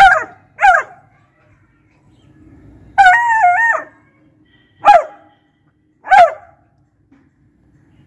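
Beagle barking: two quick barks, then a longer wavering bay about three seconds in, then two more single barks.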